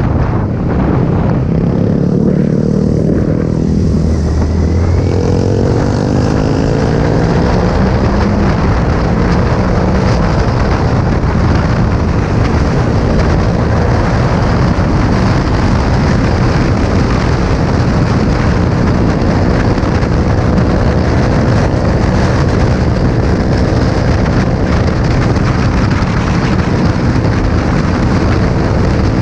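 Heavy wind noise on an action camera's microphone over a Kawasaki Z800's inline-four engine on the move. The revs rise a few seconds in, then hold at a steady cruise.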